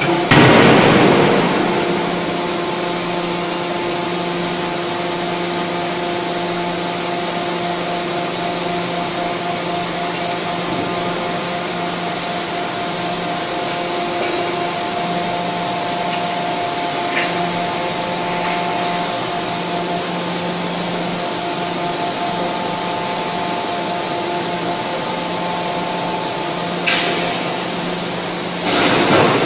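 Steady drone of an 8-ton fully hydraulic forging hammer and its hydraulic system idling, with a few held tones and a hiss. A loud noisy burst comes in the first second or so and another just before the end.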